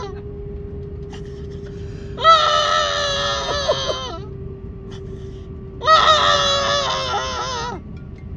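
A man's put-on crying: two long, high-pitched wavering wails, each about two seconds, with a short break between. A faint steady hum runs underneath.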